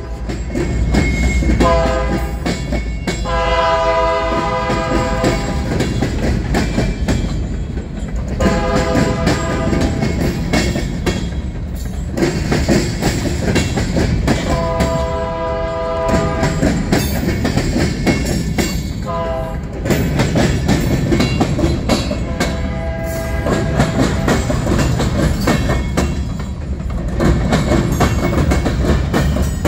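Union Pacific freight train rolling past close by: a steady low rumble with wheels clacking as covered hopper cars go by. The locomotive's air horn sounds about six times, some blasts short and some held for a couple of seconds.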